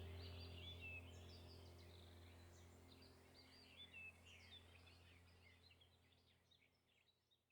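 Faint chorus of small songbirds chirping and trilling over a steady low hum, the whole fading out gradually.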